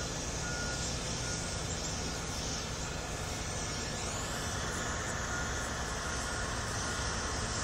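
Steady low vehicle rumble with hiss, unbroken throughout, with a faint rising whine about halfway through.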